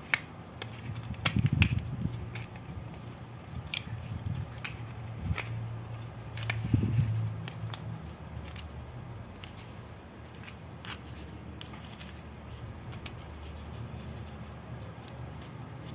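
Hard plastic toy parts clicking and rubbing in the hands as red plastic logs are pushed into green plastic clips, with scattered small clicks and two louder soft knocks, about a second and a half in and near seven seconds.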